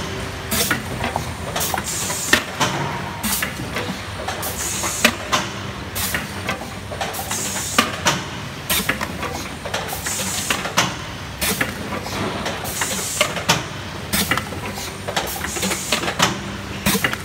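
A 2007 Quiel coleslaw tub-filling and lidding line running: a steady machine hum with frequent clicks and clacks, and a short burst of hiss about every two and a half seconds in a regular cycle.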